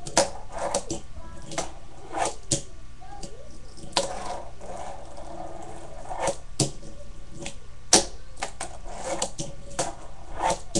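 A fingerboard clacking on a wooden tabletop and a small box ledge: a dozen or so sharp pops and landings, the loudest about eight seconds in, with short scraping grinds along the waxed ledge between them.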